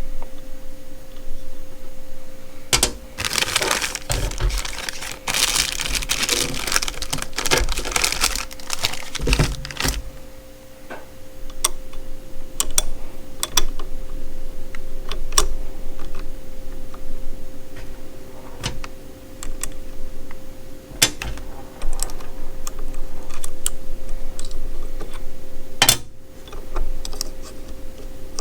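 Hands handling hard plastic and metal tool parts: scattered sharp clicks and knocks, with several seconds of dense rattling and rustling about three to ten seconds in, over a faint steady hum.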